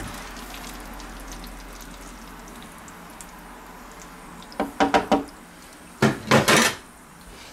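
Faint steady sizzle from a frying pan of hot fat, then a metal ladle and a wooden spoon clattering onto a stainless steel sink drainer in two quick clusters of knocks, about four and a half and six seconds in.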